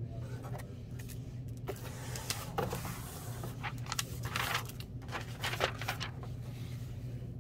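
Paper sheets and cardboard packaging rustling and crinkling as they are handled, in a series of short bursts, over a steady low hum.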